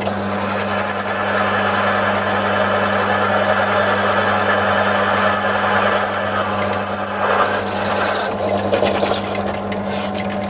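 Bench drill press running with a 5.7 mm drill bit cutting through a metal block, a steady motor hum under the cutting noise. About seven to eight seconds in the cutting noise changes as the drill comes out of the hole, while the motor keeps running.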